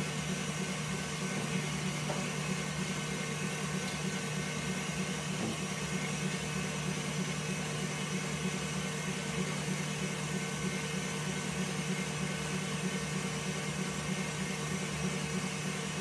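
KitchenAid stand mixer running steadily at speed, its wire whisk beating egg whites and hot syrup into a thick white meringue in a glass bowl: an even motor hum with whisking noise.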